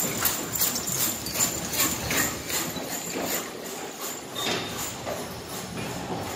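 Heavy draft horse team pulling a cart past: a steady beat of hoofbeats with harness and trace chains jingling in time, about two to three a second, fading as the team moves away.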